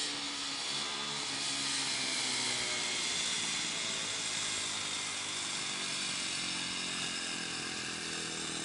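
Motorcycle engine running as the bike is ridden slowly in circles, its pitch drifting a little up and down with the throttle.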